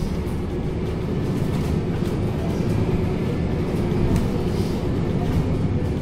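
Cabin noise inside a moving MAN NL323F A22 bus: its six-cylinder diesel engine and the tyres give a steady low rumble, with a faint steady hum on top.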